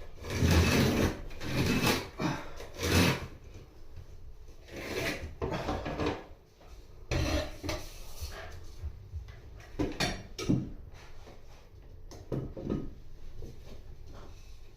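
Wood being rasped or scraped by hand in irregular strokes: several loud strokes about a second apart at first, then scattered scrapes and a few sharp knocks.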